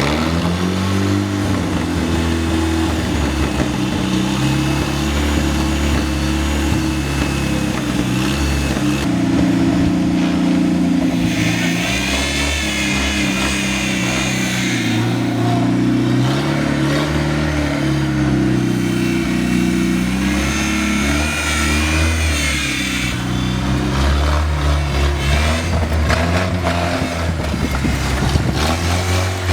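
GAZ-69's four-cylinder side-valve engine, just rebuilt, running with its speed rising and falling as it is revved. A higher wavering tone joins in twice, about twelve and twenty-one seconds in.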